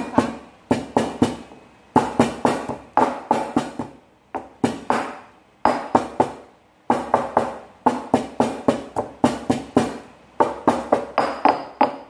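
Granite pestle pounding red chillies in a granite mortar: a run of sharp strikes, about three a second, broken by a few short pauses.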